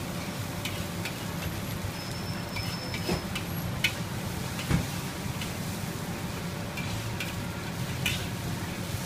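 Fried rice sizzling in a wok while a metal spatula scrapes and knocks against the wok, with sharp clanks at irregular intervals.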